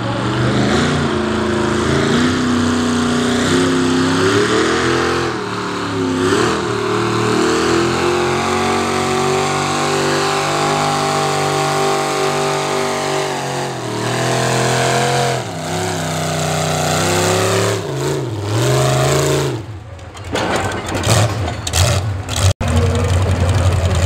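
Modified pulling tractor's carbureted V8 with open header stacks running hard under load as it drags a weight-transfer sled, its pitch rising and falling as the throttle is worked. Near the end, after a break in the sound, it settles to a steady low idle.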